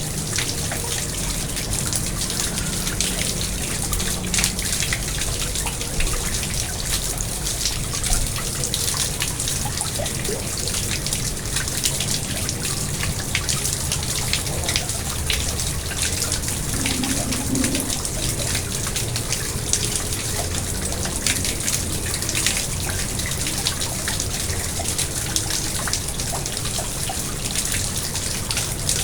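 Pond water splashing and trickling steadily, a dense patter of small droplets over a low rumble.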